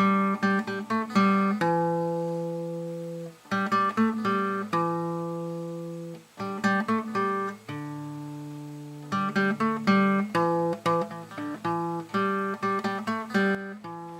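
Acoustic guitar music: strummed chords and plucked notes in short phrases, each ringing out and fading before the next.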